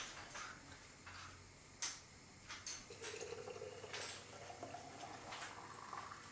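Raspberry juice poured through a steel funnel into a glass bottle, with a few sharp clinks of glass and metal. From about three seconds in, a rising tone as the bottle fills up.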